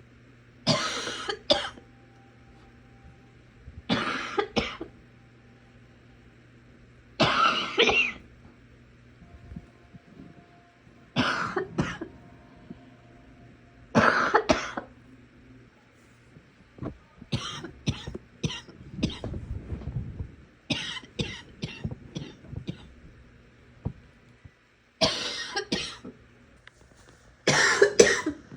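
A sick person coughing over and over: harsh coughs every three or four seconds, often two at a time, with a run of shorter, quicker coughs in the middle.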